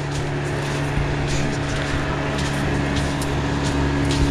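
A steady motor hum, even in pitch and level, with light footsteps every second or so.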